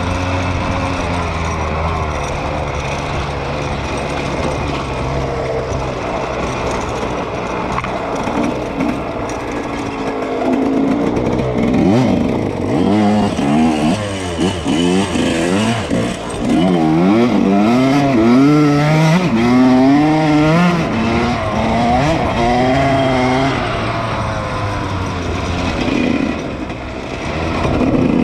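Suzuki RM125 single-cylinder two-stroke dirt bike engine, running steadily at first, then revving up and down again and again from about ten seconds in, its pitch rising and falling with the throttle.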